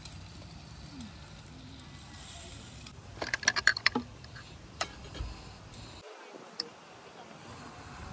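Camping gear rattling and knocking in a wooden crate as a hand rummages through it: a quick run of clatters about three seconds in, lasting under a second, then a single click. A steady low background noise runs beneath until it drops away near the end.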